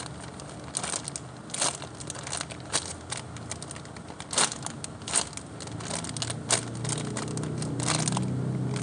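Handling noise: irregular crinkling and crackling with sharp clicks, several seconds apart, as a foam squishy toy is handled and squeezed close to the microphone.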